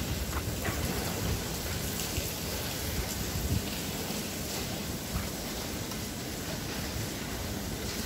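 Steady rain falling, an even hiss with a few faint drop ticks.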